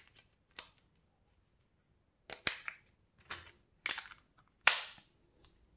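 Batteries being pressed into a plastic TV remote's battery compartment and the battery cover snapped back on: a string of about seven sharp plastic clicks and knocks, the loudest near the end.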